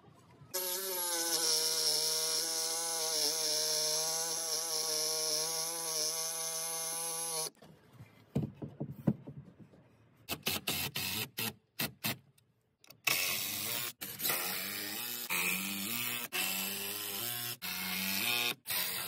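Cordless drill running under load in long spells as it drives screws into the beam timber, its motor pitch wavering and stepping up and down. Short knocks come in between, and the sound is cut off abruptly several times.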